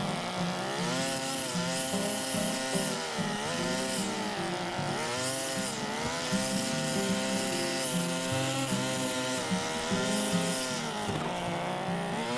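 Small two-stroke brush cutter cutting grass. Its engine note sags and recovers every second or two as the blade bites into the grass and clears it.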